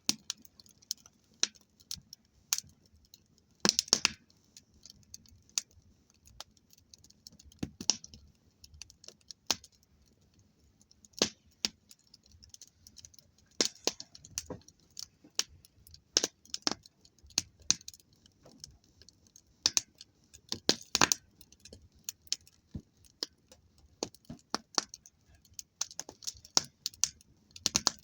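Campfire burning down to coals, crackling with irregular sharp pops and snaps over a faint hiss, now and then a louder cluster of pops.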